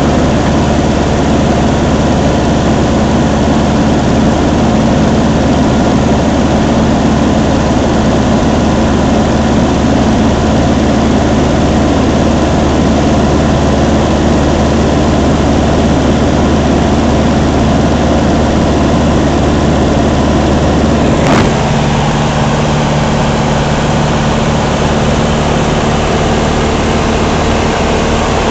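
Luscombe light plane's engine and propeller droning steadily in cruise flight, heard from inside the cabin. About three quarters of the way through there is a brief click and the engine note changes.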